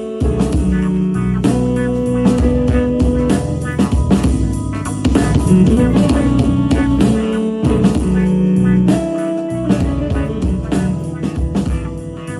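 Blues-rock music with guitar and drum kit, played through a Bose SoundLink Max portable speaker in a sound test.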